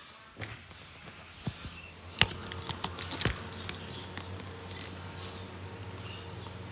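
Scattered clicks and knocks, the loudest a little over two seconds in, over a low steady hum that starts about two seconds in.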